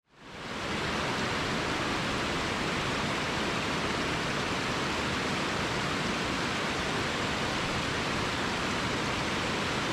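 Small creek cascading over rocks: a steady rush of water that fades in over the first second.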